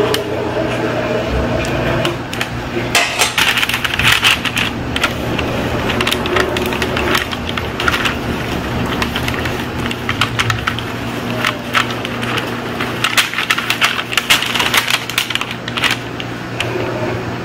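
Parchment paper crinkling and rustling, with many irregular light clicks and taps, as hands spoon filling onto a corn tortilla and roll it into a taquito on a paper-lined baking tray. A steady low hum runs underneath.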